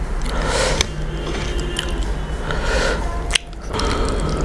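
Close-miked wet chewing and mouth sounds of a person eating fish and rice, with scattered soft clicks.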